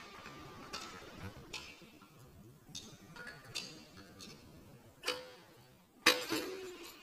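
Pro kick scooter clacking on asphalt: a string of sharp clicks and knocks at irregular intervals, the loudest just after six seconds in, followed by a brief metallic ring.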